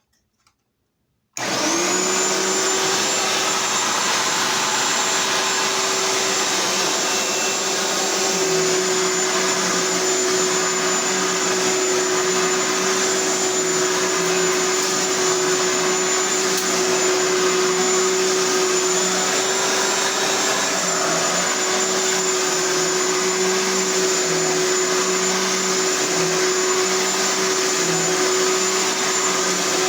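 A 10.5-amp Bissell Micro-Lock vacuum cleaner switched on about a second and a half in, its motor spinning up quickly and then running steadily, loud, with a high whine over the rush of air.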